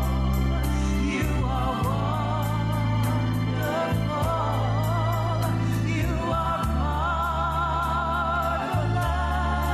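Gospel song: a singer's voice with wide vibrato over sustained organ and bass chords, with a steady beat.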